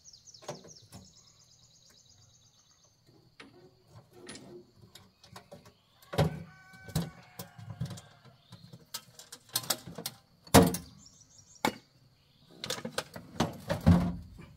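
Irregular knocks and clattering, loudest about six, ten and a half and fourteen seconds in, with a quick trill of bird-like chirps near the start.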